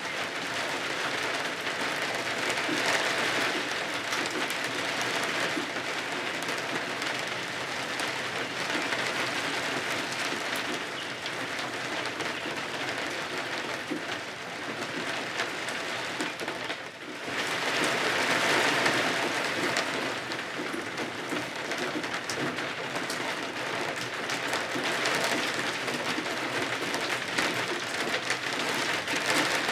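Steady rain pattering, dense with fine drop ticks, swelling and easing in slow waves, with a brief dip a little past halfway.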